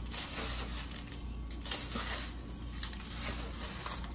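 Panko breadcrumbs rustling and crunching as a gloved hand presses and turns a chicken cutlet in them in a foil pan, an irregular scratchy rustle.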